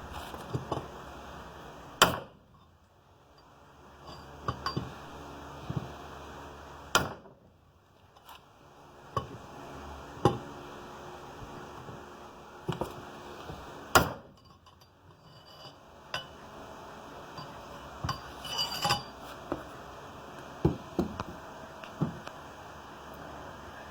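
Sharp metallic strikes on a metal pipe set over a motorcycle steering stem, driving the lower steering stem bearing down onto it. Three hard blows a few seconds apart, with lighter taps and clinks between.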